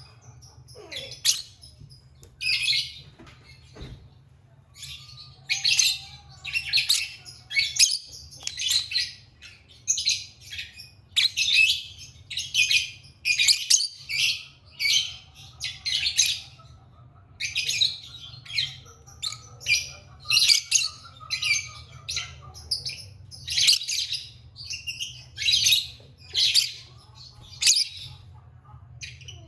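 Pet lovebirds chirping: a rapid run of short, shrill calls, several a second in clusters, over a faint steady low hum.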